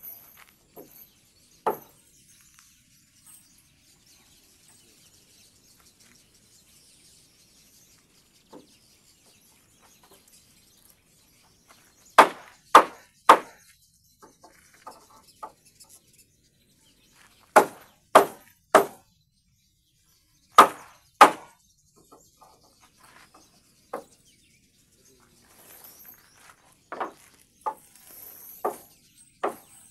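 Hammer blows on timber during carpentry work: sharp knocks in short runs of two or three, then a steadier run of about two blows a second near the end.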